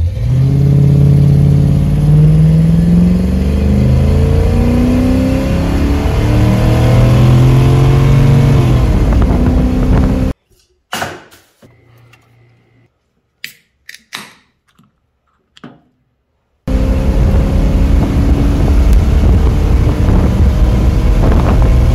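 1966 Chevrolet Impala's 396 big-block V8 accelerating through its Turbo 400 automatic: the engine's pitch rises, drops and climbs again during a drawn-out first-to-second shift, a sign of a slipping transmission. The sound cuts off abruptly about ten seconds in, leaving a few faint clicks, and the engine returns, running loud and steady, about seventeen seconds in.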